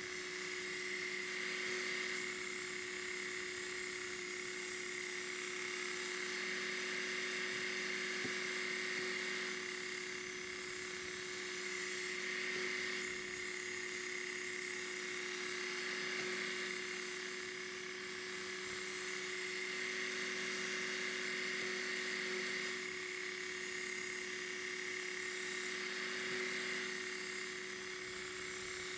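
Work Sharp Ken Onion Elite belt sharpener running steadily, its motor speed turned up slightly for faster grinding. A steel kitchen knife blade is drawn across the abrasive belt in repeated passes, and the grinding hiss swells and fades every couple of seconds as each pass starts and ends. The blade is being reprofiled to a 20-degree edge and has not yet raised a burr.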